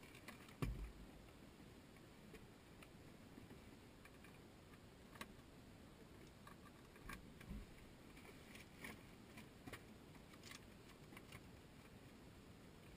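Near silence in the cockpit with the engines stopped, broken by a thump about half a second in and scattered light clicks and taps as the pilot handles controls and papers.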